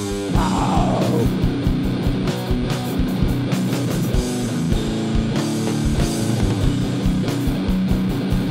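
Loud heavy rock song with distorted guitar and a steady drum beat, with a pitch sliding sharply downward in the first second.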